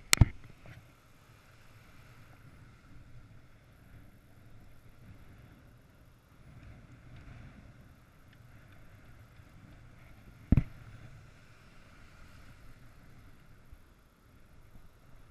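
Surf breaking and washing as a low, steady noise, with two sharp knocks on the camera, one right at the start and a second about ten and a half seconds in: the angler's hand or rod bumping the body-mounted camera.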